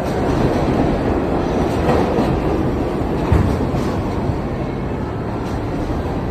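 New York City subway train running in the station, a steady low noise, with one sharp thump about three seconds in.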